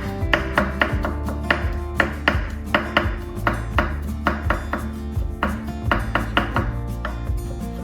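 Knife chopping food on a cutting board in quick, even strokes, about three to four a second, over background music.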